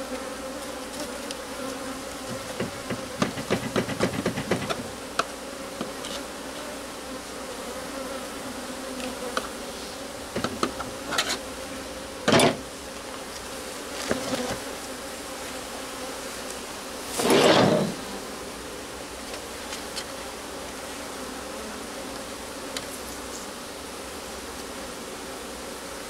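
Honey bees buzzing steadily in large numbers around cut brood comb. A quick run of clicks and scrapes comes a few seconds in, then several sharp knocks, the loudest a longer thud about two-thirds of the way through.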